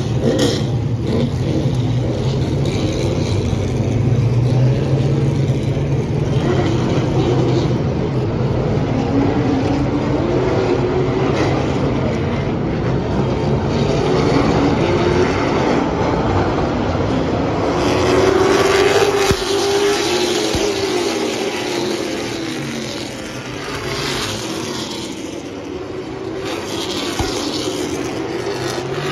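A field of stock car engines running hard around the track, their pitch rising and falling as cars accelerate and pass. The sound is loudest about eighteen seconds in as the pack goes by, then eases off.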